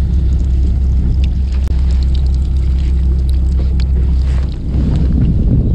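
Fishing boat's engine idling with a steady low hum, wind buffeting the microphone, and light clicks of fishing tackle being handled. The wind gets gustier near the end.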